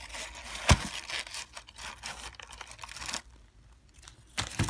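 Packaging rustling and crinkling as items are handled and taken out of a box, with a sharp knock about 0.7 s in and another near the end.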